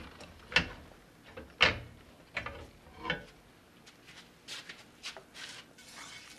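A few sharp knocks and clatters of a skillet and kitchen things being picked up and handled. The loudest is a thump about a second and a half in, with softer rustles near the end.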